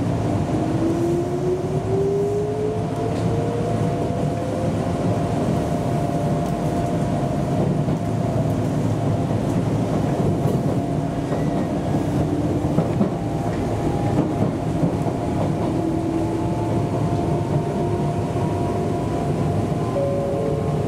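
Enshu Railway electric commuter train running along the line, with a steady rumble of wheels on rails. A motor whine rises in pitch over the first few seconds as the train picks up speed, and another slow rising whine comes in later.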